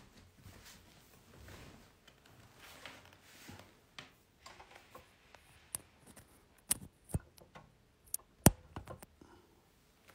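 Quiet room with scattered sharp clicks and knocks from something unseen, growing busier in the second half; the loudest knock comes about eight and a half seconds in.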